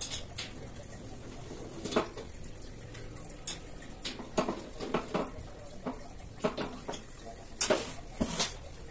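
Irregular light clinks and knocks of steel shelf-frame tubes and fittings being handled and fitted together, with two louder knocks near the end.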